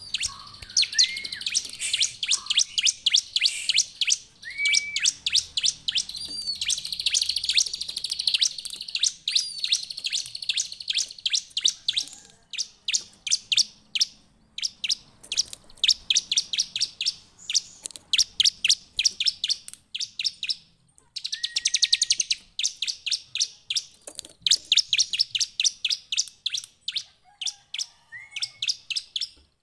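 Bar-winged prinia (ciblek) singing hard: a fast run of sharp, high chirps, several a second, broken by a few short rising notes and two brief pauses, one near the middle and one about two-thirds in.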